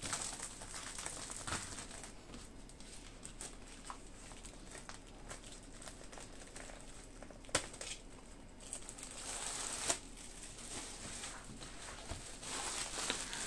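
Packaging rustling and crinkling as a wooden ship model kit is unpacked, with a few light knocks of parts being handled.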